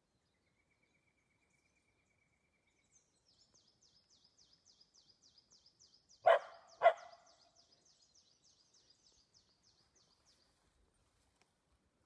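A dog barks twice in quick succession, about half a second apart, a little past the middle. Behind it a bird gives a faint high trill and then a fast series of repeated high chirps, about three or four a second.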